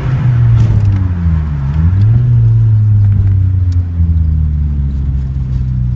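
Nissan CA18DET turbocharged 1.8-litre four-cylinder engine, the one with a misfire problem, dropping off from held revs: the engine speed sags unevenly to a low dip near two seconds in, picks back up, then settles into a steady idle.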